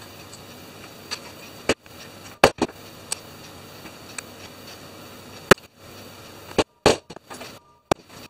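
Hammer tapping steel press nuts into the holes of a carbon-fibre drone frame plate laid on a wooden block: a series of sharp, irregular knocks, with lighter clicks of the small metal nuts being handled between them.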